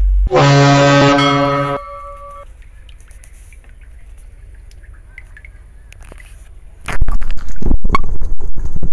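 A loud horn-like blast, one steady pitch with many overtones, lasting about a second and a half with a short ringing tail. Then a few seconds of faint background noise, and for the last two seconds a run of loud, irregular knocks and thumps.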